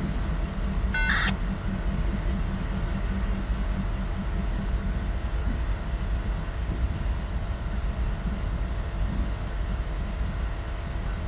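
Norfolk Southern diesel locomotive's engine running as the unit moves slowly away along the yard track, a steady low rumble. A short high beep sounds about a second in.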